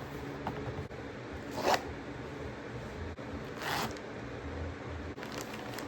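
Blind-box packaging being opened by hand: two short scratchy tearing rustles, with a fainter one near the end.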